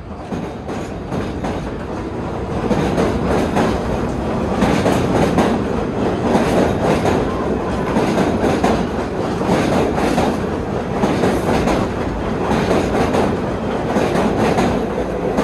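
Vintage R33 subway train running on the rails, its wheels clicking over rail joints. It grows louder over the first few seconds, then runs on steadily.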